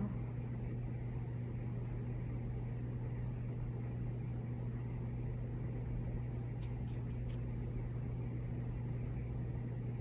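Steady low hum with an even faint hiss underneath, unchanging throughout, with a few faint light ticks about seven seconds in.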